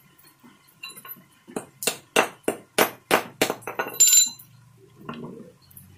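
A small metal casting mould knocked about ten times in quick succession, three to four knocks a second, to free a freshly cast lead fishing sinker, the last knock ending in a short metallic ring.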